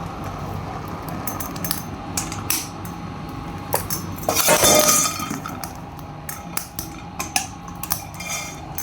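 Metal utensils clinking and scraping against a cooking pan over a steady hiss, with a louder rushing burst about four and a half seconds in.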